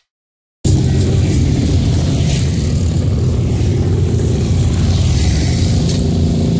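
Motorcycle engines running steadily, a deep continuous drone that cuts in abruptly about half a second in.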